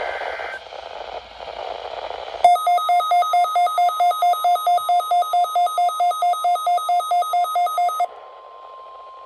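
Weather radio hiss, then about two and a half seconds in a shrill electronic alarm beeping rapidly, about four to five beeps a second, for roughly five and a half seconds. When the beeping cuts off, the steady NOAA Weather Radio 1050 Hz warning alarm tone sounds faintly over the hiss, the start of a weekly alarm test.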